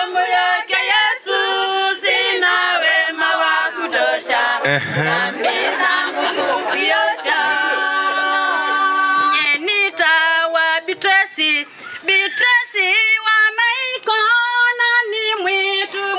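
A group of women singing a hymn together in harmony, unaccompanied, with long held notes about halfway through.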